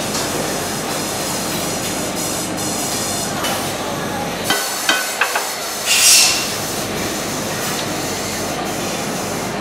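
Steady factory-floor machinery drone. A few sharp metal clicks come about five seconds in as a golf iron is worked in a loft and lie bending machine, followed by a short burst of hissing air.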